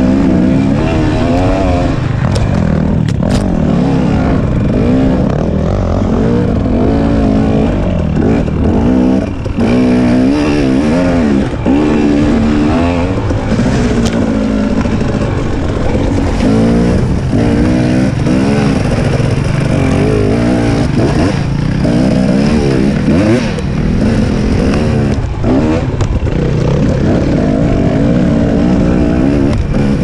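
Husqvarna TX 300 two-stroke enduro motorcycle engine under constantly changing throttle, the revs rising and falling every second or two, with a couple of brief drops where the throttle is shut off.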